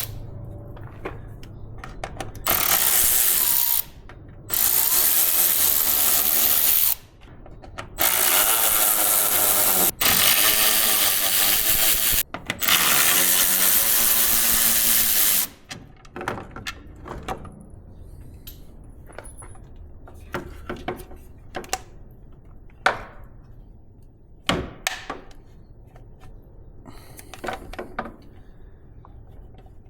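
Cordless drill with a Phillips bit, run in five short bursts of a couple of seconds each with a steady motor whine, backing out the screws that hold a pickup's corner light housing. Small clicks and knocks of handling the tool and parts follow.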